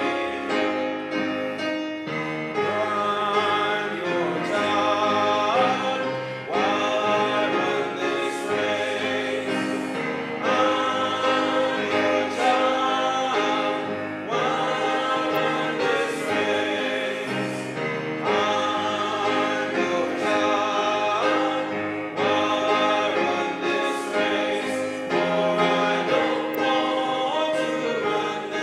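A hymn sung by several voices together over a steady instrumental accompaniment, in phrases of a few seconds each.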